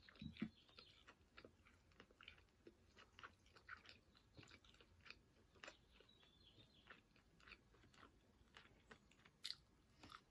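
Faint, close-miked chewing of chicken wings: a steady run of soft wet clicks and small crunches, with one sharper click near the end.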